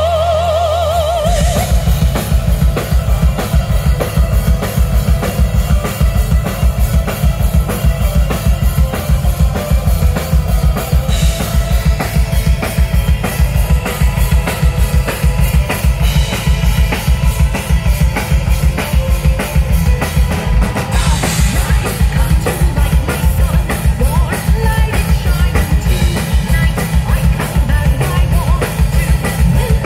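Live rock band playing through a stage PA: electric guitars and bass with a full drum kit. A held, wavering note ends about a second in as the drums come in with a rapid, steady bass-drum pattern and snare, which stay the loudest thing from then on.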